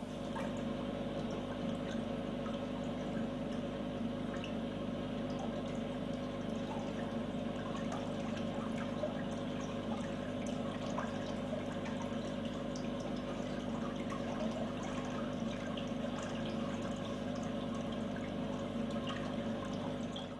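Water flowing and gurgling steadily, with a steady hum beneath it and many small scattered ticks and pops.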